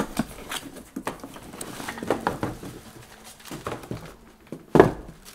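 Cardboard box being opened by hand: flaps and packing scraping and rustling with small knocks, and one louder thump near the end.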